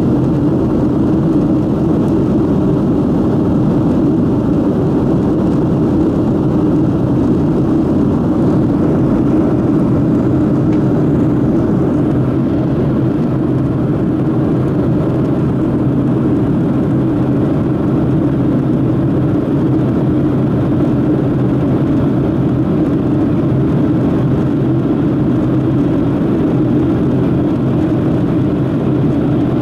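Steady cabin noise inside a Boeing 737-700 climbing after takeoff: the CFM56-7B jet engines and rushing airflow make an even, unchanging drone, heard from a window seat.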